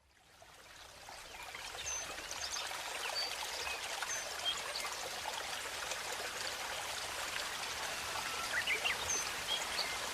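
Running water, a steady rushing hiss that fades in over the first two seconds, with scattered short high chirps over it.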